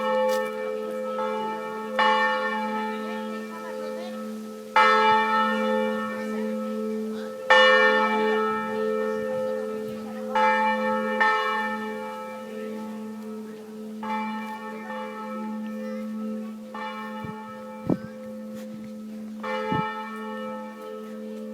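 Church bells of the Chapelle Notre-Dame du Haut tolling, about one stroke every two to three seconds. Each stroke rings on over a steady, sustained hum, and the later strokes are softer.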